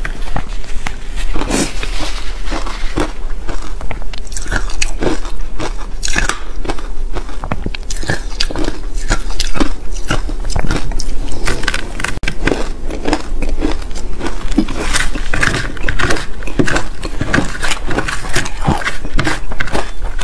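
Close-miked biting and chewing of soft powdery ice coated in matcha and buckwheat: a dense, irregular run of crisp crunches and crackles.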